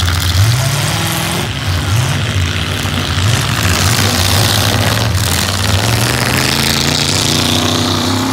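Demolition derby pickup truck engines revving in several rising bursts in the first few seconds, then running more steadily.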